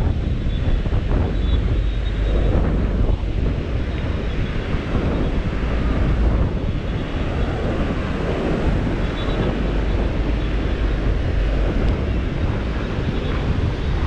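Strong wind buffeting the microphone with a low rumble, over the steady wash of ocean surf breaking on the beach.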